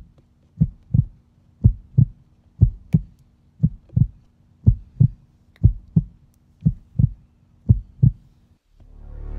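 Heartbeat sound effect: paired low thumps about once a second over a faint steady hum. Near the end the beats stop and music begins to swell in.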